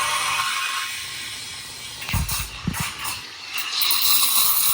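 Steam hissing from an Atomic stovetop coffee maker's steam wand as the valve is opened, under lots of pressure. A couple of dull knocks come about two seconds in, and the hiss grows louder and brighter near the end.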